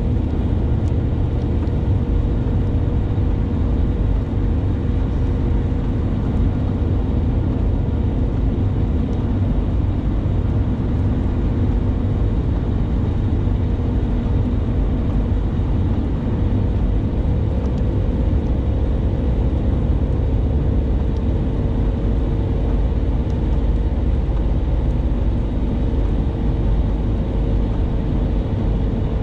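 Steady road noise inside a moving car on a wet road: a low rumble of tyres and engine, with a faint steady hum over it.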